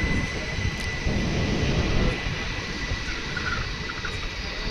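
Passenger train running through a railway station: a steady low rumble with a thin, steady high-pitched whine over it.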